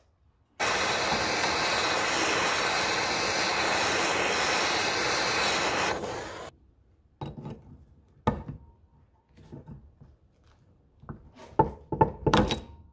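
A loud, steady hissing noise for about five seconds that starts and stops abruptly, then several sharp metallic taps with a short ring, bunched near the end: a steel punch struck against the end of a vice screw to peen it over a washer on the swivel pad.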